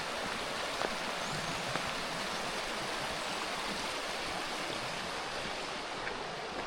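Steady rush of a river or stream flowing over rocks: an even, unbroken wash of water noise.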